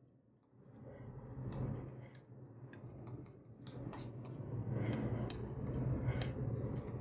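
Chopsticks clicking and scraping against the rim of a ceramic bowl as the last of the food is shovelled into the mouth: many quick, irregular clicks over a low steady hum that grows louder in the second half.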